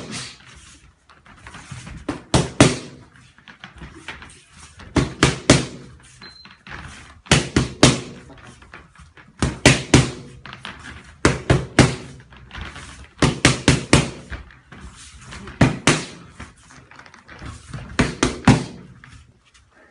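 Punches landing on boxing pads in quick combinations of two to four sharp smacks, with a pause of a second or two between combinations.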